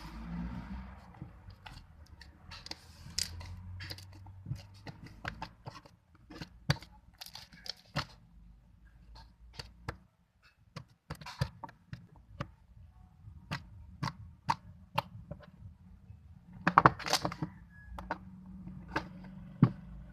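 Hands squishing and stretching homemade slime, making irregular sticky clicks and pops, with a louder run of pops about seventeen seconds in.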